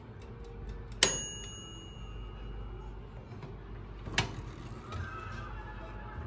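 Countertop oven's mechanical timer ending its ticking with a single bell ding that rings on for about a second, signalling the bake time is up. About three seconds later, a click as the oven door is opened.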